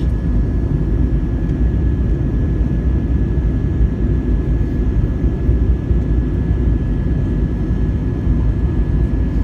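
Airbus A321 airliner cabin noise during descent: a steady low rumble of the engines and airflow, with a faint steady whine above it.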